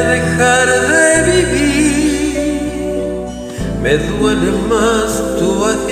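A man singing a romantic ballad with vibrato over a karaoke backing track of sustained chords and bass. The chords change about a second in and again a little past halfway.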